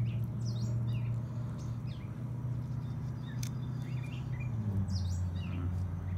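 Small birds chirping in short, quick repeated notes over a steady low engine hum, which drops in pitch a little past the middle.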